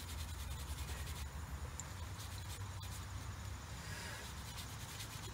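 Light scraping and rubbing with a few small clicks as the axle shaft threads are cleaned by hand for the axle nut, over a steady low hum.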